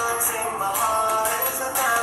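Music: a song with a sung or synthesised melody over a steady beat with bright jingling percussion.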